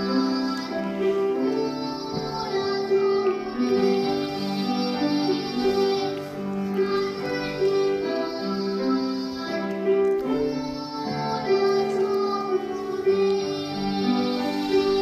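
Children's vocal ensemble singing a melody of held notes with instrumental accompaniment.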